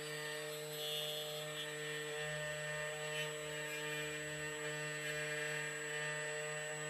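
2M2 Tank CNC key cutting machine running steadily as it mills a Ford HU198T key blank, its motor giving a constant hum with a faint grinding hiss.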